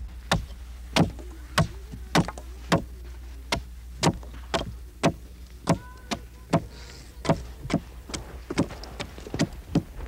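Repeated sharp knocks, about two a second, varying in strength.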